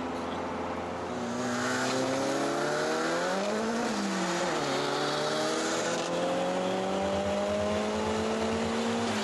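Nissan S13 Silvia's engine heard from inside the cabin under acceleration on the track: the revs climb, dip sharply about four seconds in, climb steadily again, and fall near the end.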